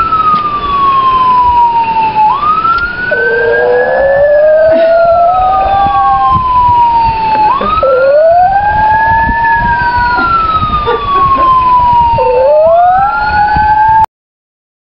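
Police siren on a slow wail, each cycle rising quickly and then falling slowly over about three seconds, repeating about every five seconds. A second, lower wail rises alongside it in each cycle. The sound cuts off suddenly near the end.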